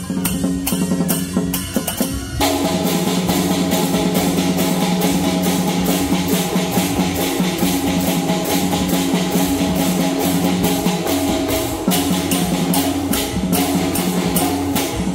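Teochew big gong-and-drum ensemble playing: a large drum, hand gongs and cymbals struck together in a steady rhythm, the gongs ringing on between strokes. About two seconds in the ensemble comes in fuller and denser.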